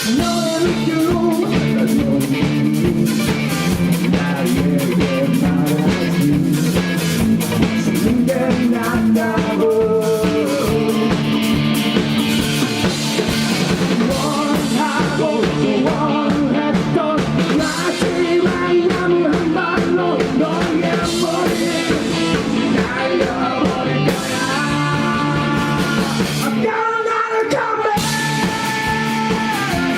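Indie rock band playing live: drum kit, electric guitars and bass with a melodic lead line over them. About 27 seconds in the drums and bass drop out for a moment before the full band comes back.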